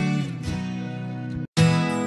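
Background music led by a strummed acoustic guitar. It cuts out briefly about three quarters of the way through, then comes back in.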